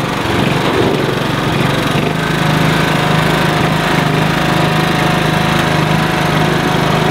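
Small garden-tractor engines running steadily under load: a John Deere garden tractor and a child's mini tractor pulling against each other on a chain in a tug of war. The engine note settles into an even hum about two seconds in.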